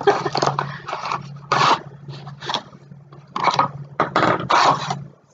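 Packaging being handled and opened to get at a flashlight: about seven irregular scraping, rustling strokes, over a steady low hum.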